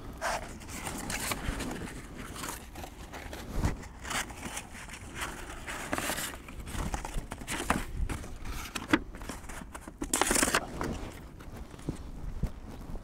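Irregular rustling and crinkling handling noises, with a louder, longer rustle about ten seconds in.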